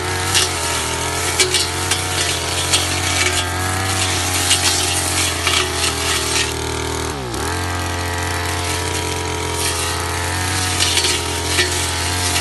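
Ogawa backpack brush cutter's two-stroke engine running at high speed while the cutting head slashes through dense weeds, with frequent sharp hits as it strikes the brush. About seven seconds in the engine speed drops sharply for a moment, then picks straight back up.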